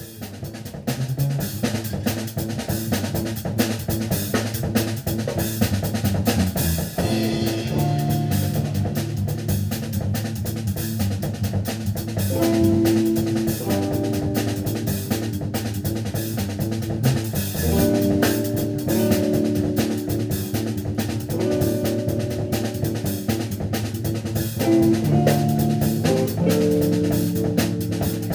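Live instrumental trio playing: a busy drum kit with snare, bass drum and cymbals, over electric bass and electric guitar holding and changing notes.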